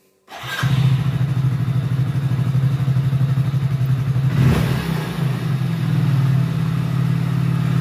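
Hero Splendor Plus BS6 single-cylinder fuel-injected engine starting and idling, with one short throttle blip about halfway through that rises and falls in pitch. After the throttle is released the idle settles higher than before: the idle speed is set too high.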